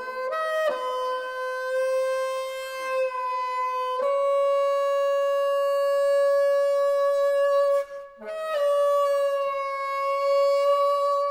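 Solo bassoon playing long sustained high notes that bend slowly in pitch, stepping up to a higher note about four seconds in. A short break for breath comes near eight seconds, with a quick low note, before the next long held note.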